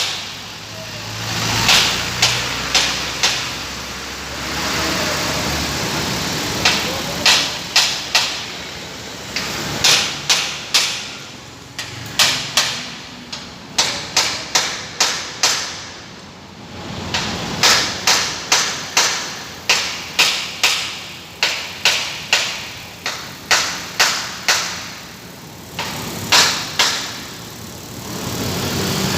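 Repeated sharp knocks in irregular runs of a few per second, like hammering, over a steady low engine hum.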